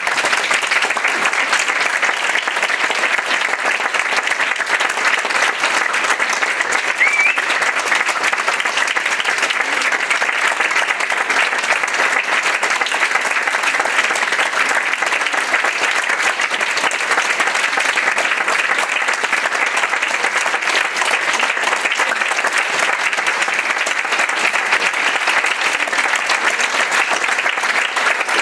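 Audience applause, breaking out at once and holding steady and dense, with a short rising whistle about seven seconds in.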